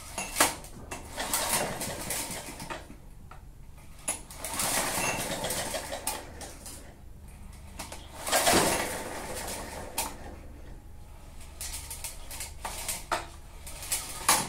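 Lawn mower's 139 cc overhead-valve engine spun over by hand with the recoil starter cord, several pulls a few seconds apart, the loudest about eight and a half seconds in. It turns over without firing, with a little oil just blown into it.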